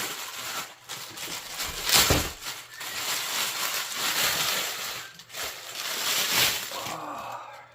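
Speaker packaging being torn open and rustled by hand. It is a rough tearing and crinkling noise, with sharper rips near the start and about two seconds in, and it fades out near the end.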